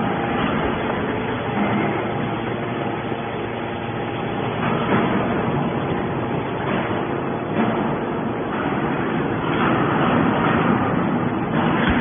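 Triple-action hydraulic scrap metal baler running: the steady hum of its hydraulic power unit, with a few held tones and some louder swells, as the ram pushes a compressed bale of metal turnings out of the press chamber.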